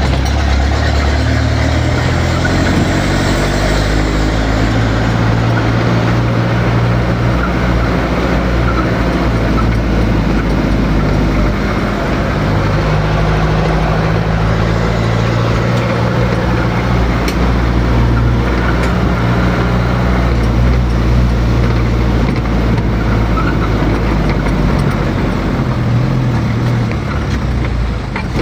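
A motor vehicle's engine running steadily, its low hum shifting a little in pitch, over a constant haze of road noise.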